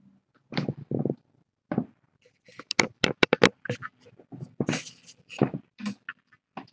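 A hand handling the webcam close up: a quick run of sharp clicks and knocks in the middle, with rustling and scuffling around them.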